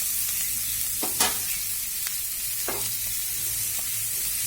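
Chicken and chopped onions sizzling in a little oil in a pan while being stirred, the spatula scraping and knocking against the pan a few times.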